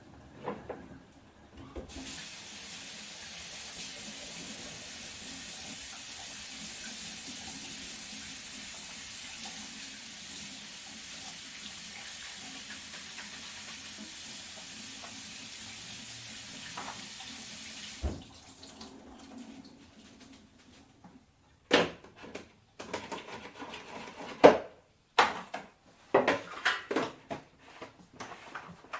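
Kitchen tap running into a sink with a steady hiss for about sixteen seconds, then cut off suddenly. It is followed by a series of sharp knocks and clatters.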